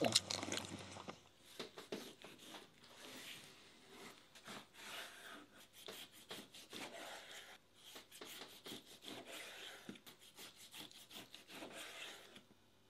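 Kitchen knife slicing raw pork front leg on a wooden end-grain cutting board: many short, irregular strokes of the blade through the meat and scraping on the wood. The strokes stop shortly before the end.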